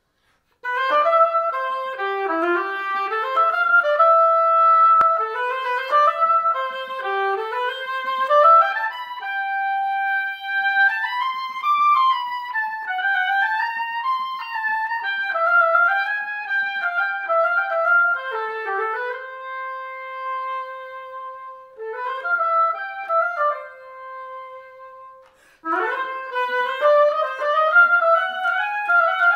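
Solo oboe playing a medium-fast, syncopated song-like melody of quick runs broken by a few held notes, with a short break about twenty-five seconds in before the line starts up again.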